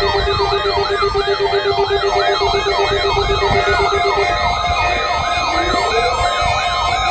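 Electronic sirens sounding together: a yelp rising and falling about twice a second, over a rapidly pulsing low tone that stops about four seconds in. A slower rising wail starts near the end.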